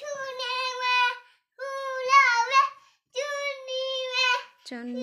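A high-pitched voice singing unaccompanied, in four short phrases with a wavering, held pitch and brief silences between them; a lower voice comes in briefly near the end.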